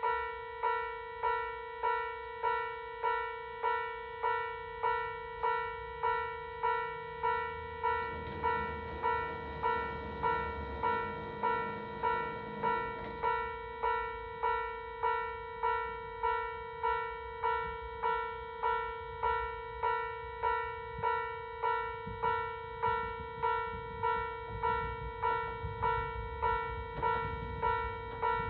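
Japanese railway level crossing warning bell ringing steadily, an even ding-ding at about one and a half strikes a second. A low rumble builds under it in the last few seconds.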